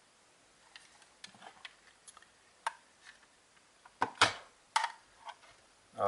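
Hard plastic walkie-talkie case being handled: scattered light clicks and taps, then a couple of sharper knocks just after four seconds in.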